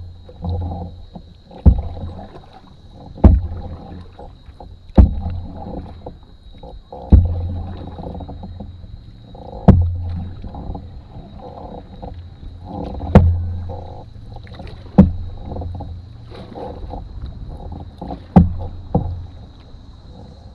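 Canoe paddle strokes: a sharp knock against the hull about every two seconds, each followed by the swish of water pulled past the boat, over a steady wash of water along the hull.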